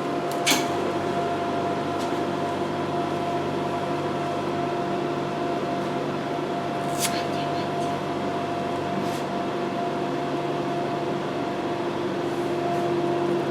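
Steady electric hum of a vacuum RF body-slimming machine running its vacuum pump and fan during a treatment, with a couple of short clicks, one about half a second in and another around seven seconds.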